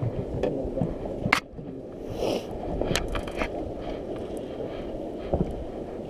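Steady low rumble of wind and water around a small boat adrift, broken by a few sharp clicks and knocks from the fishing rod and reel being handled, the loudest about a second in and about three seconds in.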